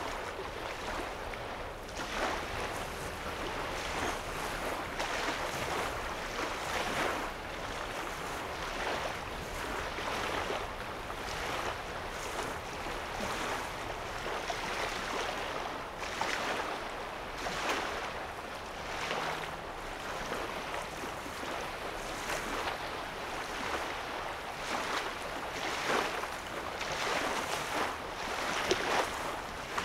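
Small lake waves lapping on a sandy shore, a soft wash every second or two, with a faint low rumble underneath.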